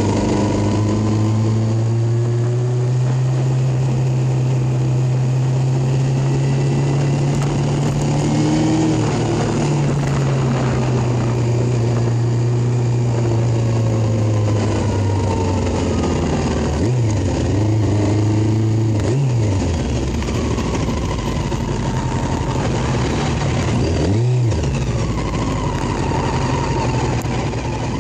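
Small motorcycle engine running under way, its note holding fairly steady and then dipping sharply and coming back up a few times in the second half as the throttle is eased off and reopened.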